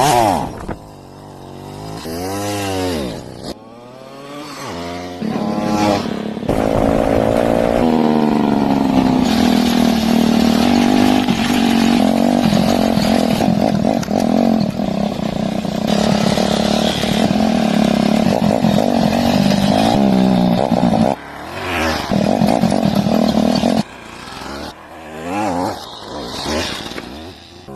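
Motorcycle engine revving: its pitch swings up and down for a few seconds, then it runs steadily at raised revs for about fifteen seconds before dropping back and revving unevenly near the end.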